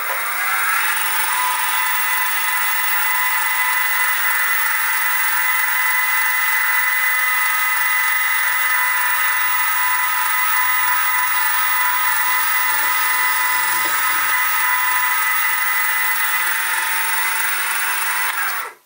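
Sieg SX2P mini mill spindle running with a 12 mm end mill, flat-bottoming a drilled bore: a steady high-pitched whine that rises as the spindle comes up to speed in the first second and cuts off suddenly near the end.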